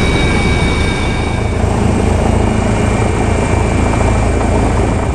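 Medical helicopter in flight, heard from on board: steady, loud rotor and engine noise with a high turbine whine that fades out about a second and a half in.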